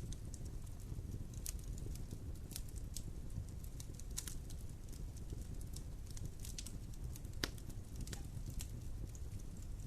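Wood fire burning in a fireplace: a steady low rumble of flames with irregular sharp crackles and pops, the loudest pop about seven and a half seconds in.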